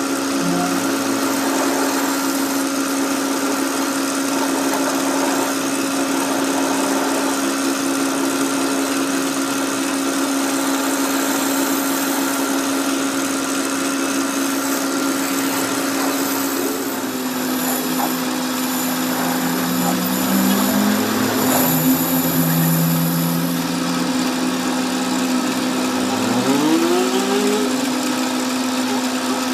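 A workshop machine's electric motor running steadily with a constant hum and a broad hiss, with a short rising whine near the end.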